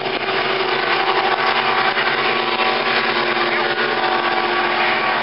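Engines of two racing boats running at speed across the water, a steady drone.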